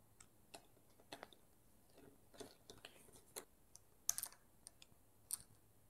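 Faint, irregular clicks and light taps of small metal and plastic parts as a SRAM Guide Ultimate hydraulic brake lever is handled and worked off the handlebar clamp. The most distinct cluster comes about four seconds in.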